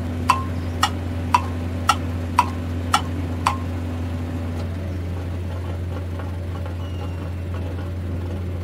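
An engine running steadily in a low drone, its higher note dropping in pitch about halfway through. In the first few seconds, seven sharp metallic knocks ring out about half a second apart.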